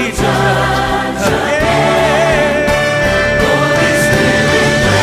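A choir singing with accompaniment in a gospel-style arrangement, holding long sustained notes with vibrato over a steady bass.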